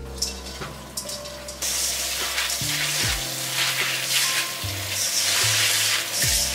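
Wet azuki beans draining and rattling in a stainless steel mesh sieve. From about a second and a half in, a loud, dense crackling rustle comes in surges as a hand stirs and tosses the beans against the metal mesh.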